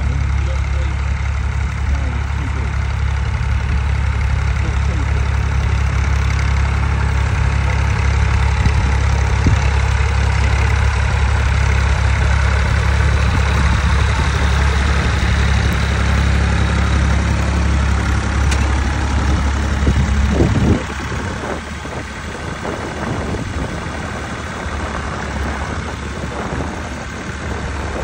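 Massey Ferguson 135 tractor engine running steadily while pulling a plough. About three-quarters of the way through, the engine sound drops away suddenly, leaving a quieter, rougher noise with scattered knocks.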